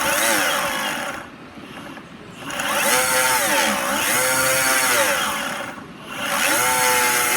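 A Boosted Board electric skateboard's belt-drive motors spin the wheels up and down in three runs. The whine climbs and falls in pitch, with a rough, noisy edge. This is the weird noise, which the owner traces to the left-side drive.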